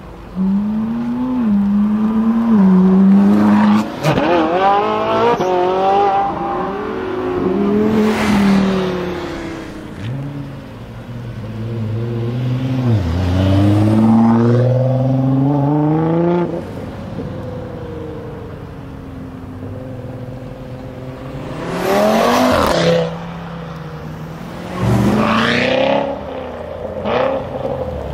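High-performance car engines accelerating hard on several runs from a standing start, the pitch climbing through each gear and dropping back at every upshift, with loud pass-bys near the end. The cars include a Ferrari 458 Italia's V8 and a Nissan GT-R.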